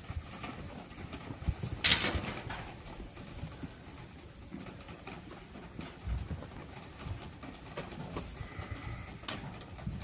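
Month-old Dorset lambs jostling and feeding at a PVC-pipe nipple bar feeder, with low shuffling and bumping throughout. A loud sharp knock comes about two seconds in, and another near the end.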